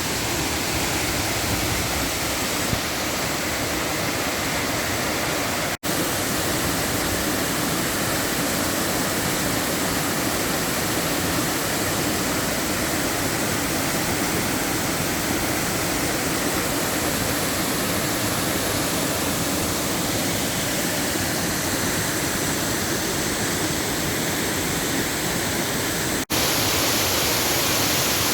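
Running water rushing steadily, with no other sounds. It breaks off for an instant twice, about six seconds in and near the end, and is a little louder after the second break.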